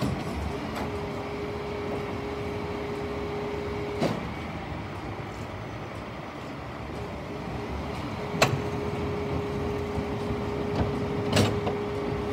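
The rear bin lifter of a Dennis Eagle toploader refuse truck raising two wheelie bins to tip them, over the truck's running engine. A steady hydraulic whine starts about a second in, stops after about four seconds and comes back later, with metallic clanks of the bins and lift gear about four seconds in and twice near the end.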